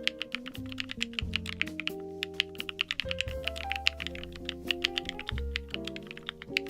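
Rapid typing on a MonsGeek M1 mechanical keyboard with Durock Black Lotus linear switches: quick keystroke clacks several times a second, with background music playing under them.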